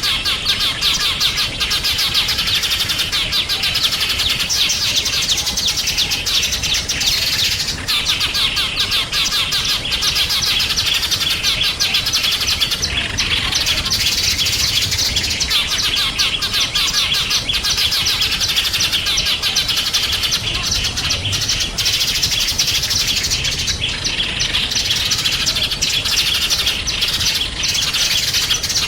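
Many small songbirds chirping and trilling together in a dense, unbroken chorus of high, rapid notes.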